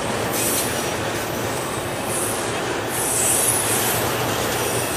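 Freight train of autorack cars rolling slowly past: a steady rumble of wheels on rail, with high-pitched wheel squeals coming in short spells about three times.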